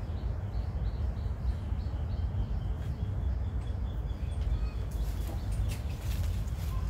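A steady low rumble on the microphone, with a small bird chirping faintly and repeatedly in the background for the first few seconds, and a few light clicks and taps near the end.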